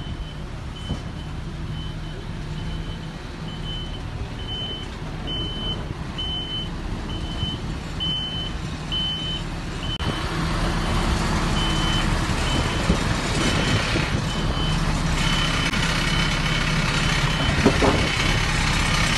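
A MAN tanker truck reversing: its back-up alarm beeps about once a second over the steady running of its diesel engine, which grows gradually louder. The beeping stops shortly before the end.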